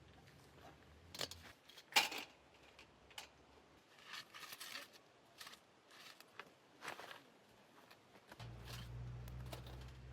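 Scattered small clicks, taps and rustles of something being handled, the sharpest about two seconds in and a longer rustle around four to five seconds. A low steady hum comes in near the end.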